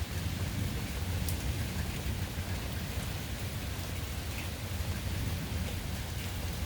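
Summer rain falling steadily, with a few distinct drop clicks over a continuous low rumble.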